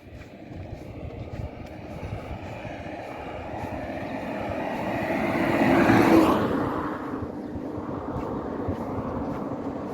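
A vehicle passing on the road. It grows louder over several seconds, is loudest about six seconds in, then fades.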